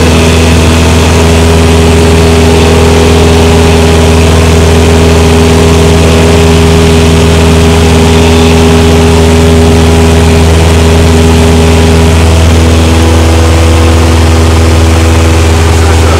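A Cessna light aircraft's piston engine and propeller running steadily in flight, heard loud inside the cabin. The engine's tone shifts slightly about three-quarters of the way in.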